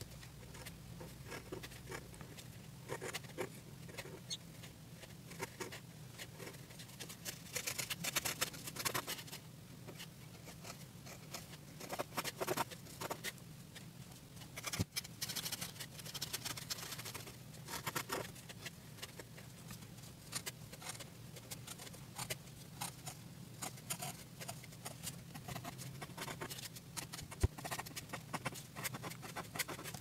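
Monami Plus Pen 3000 fibre-tip pen scratching on paper in quick, short hatching strokes, coming in dense runs of rapid scratches with brief pauses between.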